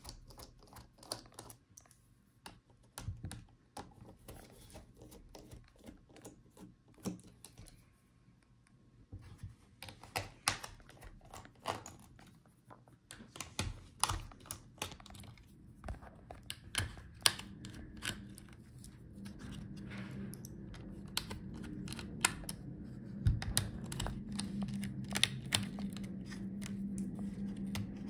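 Small screwdriver working the motherboard screws of a laptop: a string of light, irregular clicks and ticks of the tool tip on screw heads and the metal chassis. A low steady hum comes in during the second half.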